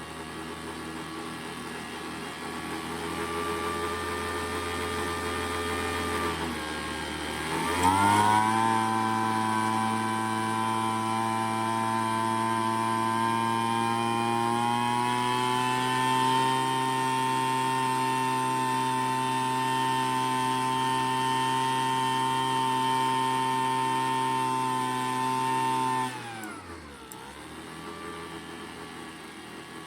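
Craftsman gas leaf blower engine idling, then throttled up about eight seconds in to a high steady rev whose pitch creeps up slightly as the high-speed mixture screw is adjusted, then dropping back toward idle near the end. This is the carburetor being tuned by ear, low end for idle and high end for maximum RPM.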